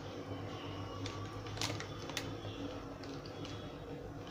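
Faint crinkling of a thin plastic sheet as hands press and roll soft cashew dough inside it, a few soft crackles over a low steady hum.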